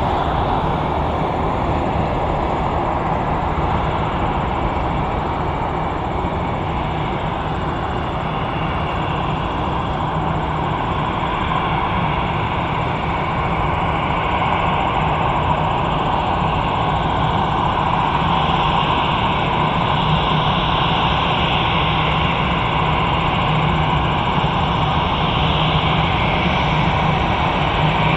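Twin-engine jetliner's turbofan engines running at taxi power: a steady rumble with a faint high whine, growing slightly louder as the plane taxis closer.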